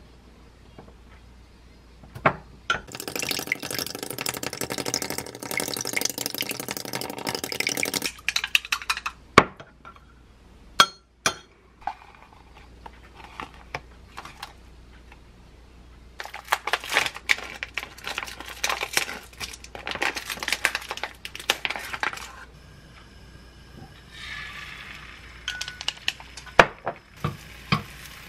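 Wooden chopsticks beating eggs in a glass bowl, a rapid run of clinking for about five seconds, then a few single clinks. Later a plastic food package crinkles in several stretches as it is handled and opened. Near the end, egg sizzles in a pan.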